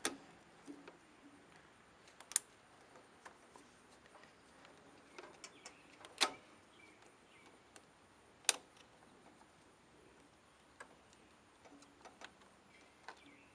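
Scattered sharp clicks and taps of hand work on the lawn tractor's fuel line and its spring retaining clips, a few seconds apart, the loudest about two, six and eight and a half seconds in.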